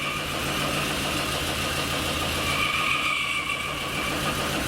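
Lada Kalina engine idling warm, with a high-pitched squeal that fades and comes back about two and a half seconds in. The scanner shows current misfires in the fourth cylinder.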